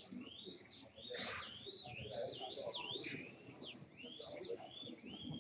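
Electric motor of a 1:32-scale ES-32 slot car lapping a track, its high whine sweeping up and falling away two or three times a second as the car speeds along the straights and brakes for the corners.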